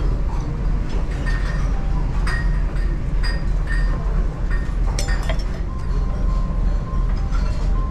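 A metal ladle clinking against a stew pot and a ceramic bowl, with scattered clinks of crockery, over a steady low rumble.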